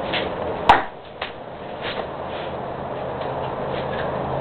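A single sharp knock about two-thirds of a second in, the loudest thing here, then a quieter knock, over low room noise.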